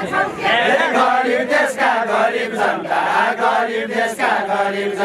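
A group of voices singing a Nepali dohori folk song together in chorus.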